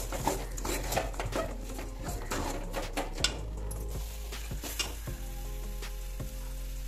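Metal ladle scraping and knocking against an aluminium kadai as a thick ground chana dal paste is stirred and sautéed in oil, over a steady sizzle. The ladle strokes come thick and fast, with one sharp knock about three seconds in, then thin out after about five seconds.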